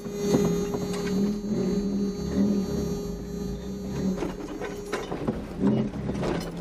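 Toyota truck's engine idling at a standstill, a steady low hum heard inside the cab, with a steadier higher tone over it that cuts off about five seconds in.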